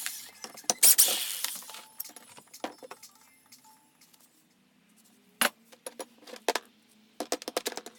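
Small pieces of scrap metal clinking and rattling as they are handled and dropped, with a loud rattling rush about a second in and a quick run of clinks near the end.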